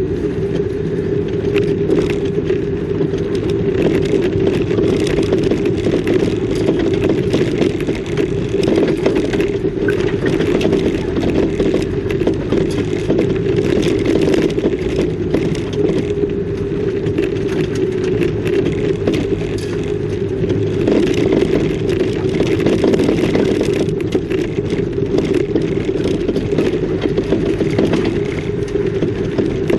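Car driving along a road: steady engine and road noise with many small rattles and scrapes.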